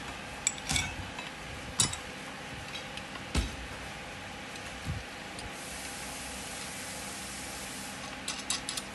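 Scattered light metal clicks and knocks as small parts are handled and fitted on a black steel bracket, ending in a quick run of clicks near the end.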